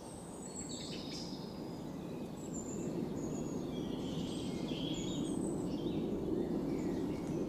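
Outdoor ambience of many birds chirping and calling in short phrases over a steady low rumble of background noise, fading in over the first few seconds.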